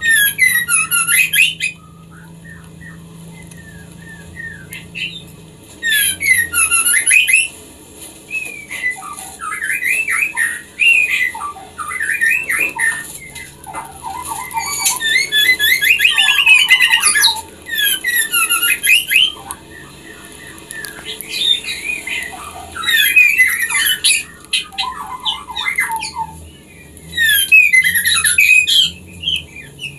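Female white-rumped shama calling in breeding condition: repeated bursts of quick, sharp notes with short pauses between. This is the call a female in heat makes to draw a male.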